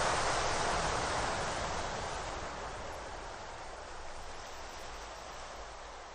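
An even, hiss-like noise wash with no tune, fading slowly away as the tail of the song's ending.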